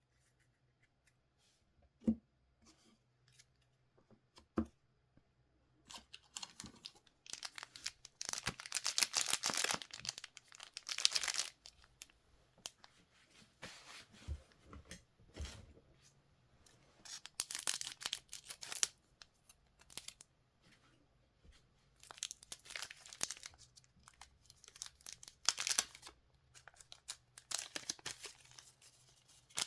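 Trading-card packs being torn open by hand, with the foil wrappers crinkling in repeated bursts and quiet gaps between them. A couple of soft knocks come in the first few seconds.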